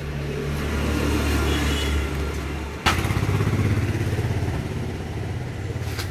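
An engine running steadily with a low hum. A single sharp metallic knock comes about three seconds in, and the engine note shifts after it.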